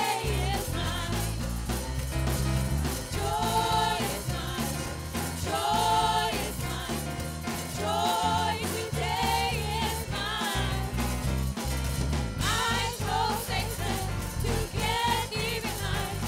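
Live gospel worship song: several singers on microphones singing a chorus over a band with bass and drums.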